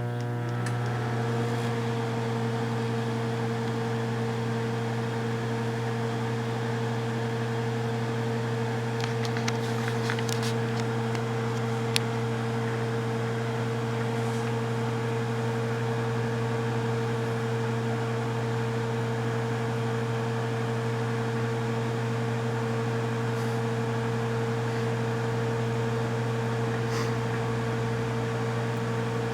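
Kitchen microwave oven running with a steady hum while heating candy, with a few faint clicks about ten seconds in.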